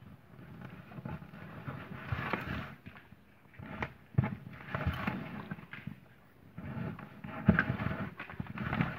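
Electrical wire being drawn through a hole in a cardboard box wall: irregular rustling and scraping of wire against cardboard, with a few sharp knocks as the box is handled.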